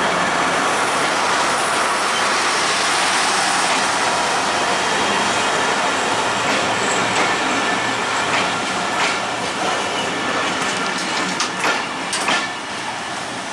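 Bangladesh Railway broad-gauge passenger coaches rolling past at close range: a steady rumble and rush of wheels on rail, easing off slightly toward the end. A run of sharp clacks comes from the wheels about eleven to twelve seconds in, as the last coaches pass.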